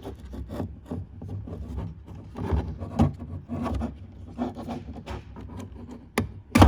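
Hands working the taillight wiring ground connections in a BMW E46's trunk: irregular rubbing and scraping of wires and plastic, with a few sharp clicks, the loudest near the end.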